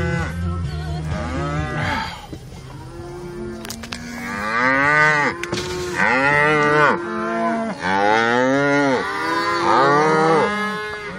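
A herd of cattle mooing and bellowing, several calls at once and overlapping, each call rising and then falling in pitch. The loudest bellows come about halfway through and again near the end.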